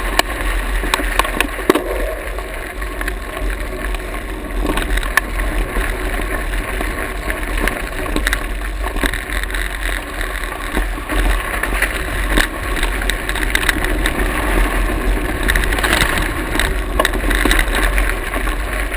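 Mountain bike riding over a dirt trail: tyre noise on the dirt, with uneven clicks and rattles of the bike over bumps and a steady low rumble of wind on the microphone.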